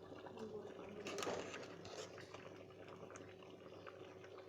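A pot of rice porridge with chicken bones bubbling on the boil, with small scattered pops and one sharper knock about a second in.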